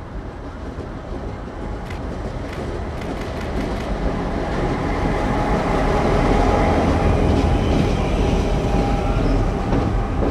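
A pair of CN diesel locomotives running light, their engines droning and rumbling. The sound grows louder as they approach, is loudest about two thirds of the way through as they pass close by, and starts to fall away at the very end.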